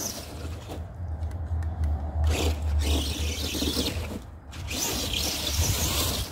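Arrma Granite 4x4 RC truck being driven over dirt and snow: its electric motor and tyres scrabbling on the ground come and go in bursts with the throttle, dropping away briefly about a second in and again just after four seconds in.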